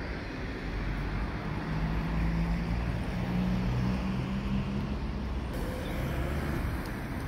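Road traffic: a car passing close by, its engine hum swelling about a second and a half in and fading after about five seconds, over steady traffic noise.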